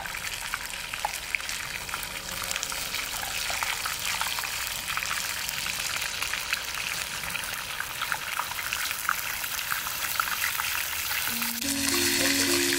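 Chicken frying in hot oil: a steady sizzle with scattered crackles and pops. Background music comes in near the end.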